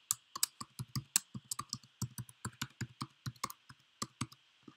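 Typing on a computer keyboard: a quick run of keystrokes, about five a second, that stops shortly before the end.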